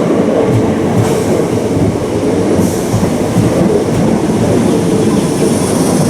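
Electric passenger train moving along the platform: a steady, loud rumble of wheels on rail, with short high hisses about a second in and around three seconds in, and a faint high wheel squeal near the end.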